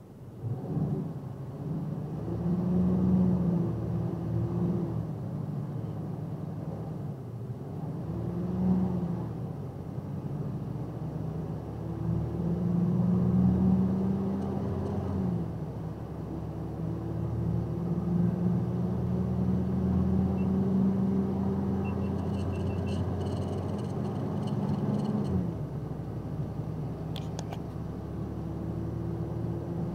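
Box truck's engine heard from the cab, its pitch climbing steadily and then dropping back several times as the truck accelerates and shifts up through the gears.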